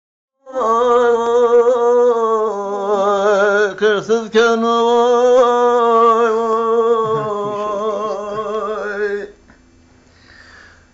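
An elderly man singing unaccompanied in long, held notes with a wavering, ornamented pitch. The voice breaks briefly about four seconds in and stops about nine seconds in.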